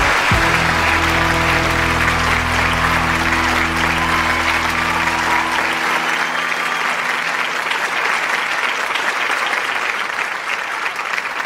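Applause over a sustained musical chord; the chord fades out about six seconds in and the clapping carries on.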